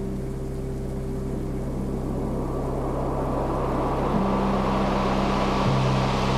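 A steady mechanical hum with hiss under it, growing louder and brighter over the last few seconds.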